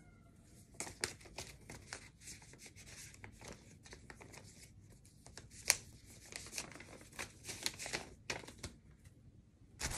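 Paper and plastic packaging rustling and crinkling in the hands, with scattered small clicks and one sharper click about six seconds in.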